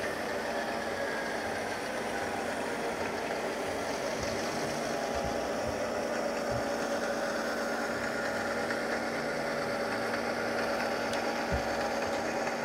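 Tsunami sound decoders in a lash-up of HO-scale GP9 model diesel locomotives playing a steady engine hum through their small speakers, each engine pitched a little differently. A few sharp clicks come through it.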